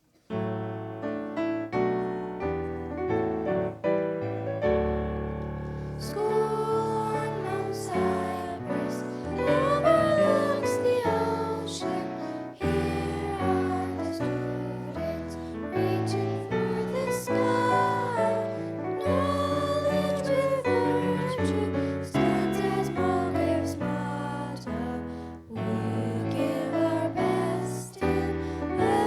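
Two students singing with piano accompaniment: a piano introduction of chords, with the voices joining about six seconds in.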